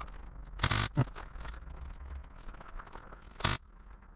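Short scuffs and rustles, probably a player's footsteps and gear, with two louder rustles about three seconds apart and a single sharp knock just after the first.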